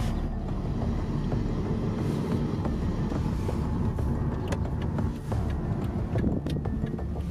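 Toyota Prius driving slowly, heard from inside the cabin: a steady low road rumble.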